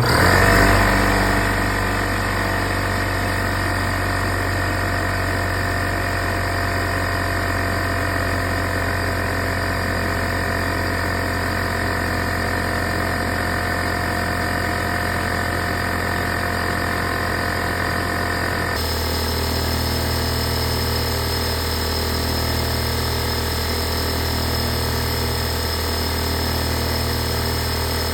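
Craftsman 150 PSI pancake air compressor starting up and running steadily, its motor and pump filling the tank. The tone shifts abruptly about two-thirds of the way through.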